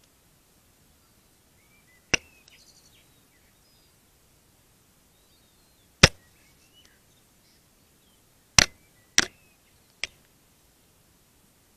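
A gull's bill pecking and knocking against the camera trap's housing: five sharp, irregularly spaced knocks, two of them close together about two thirds of the way through.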